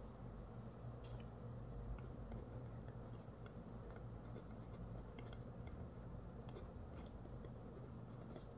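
Pen scratching faintly on paper as words are written by hand in short strokes, over a steady low hum.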